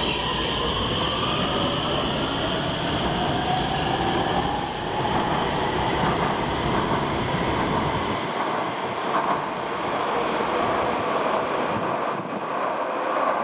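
Electric metro train pulling away, its traction motors giving a whine that rises in pitch as it gathers speed, over the rumble of wheels on rails. The low rumble falls away about eight seconds in.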